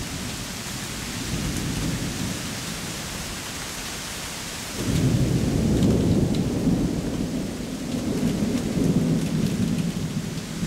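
Thunder rumbling. It starts suddenly about halfway through, much louder than what came before, and rolls on unevenly to the end. Under it is a steady hiss.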